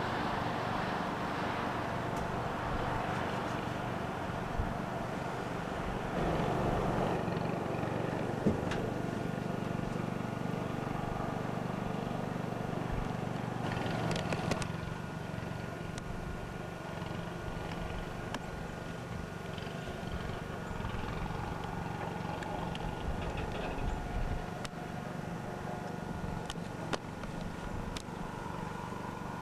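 Steady engine drone heard from inside a light aircraft's cabin, a little quieter after about halfway.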